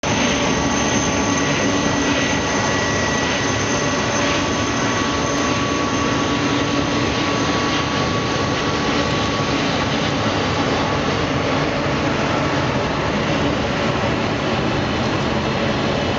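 Four CFM56 turbofan engines of an Airbus A340-300 running steadily at low taxi thrust: an even rush of jet noise with faint high whining tones that fade out about halfway through.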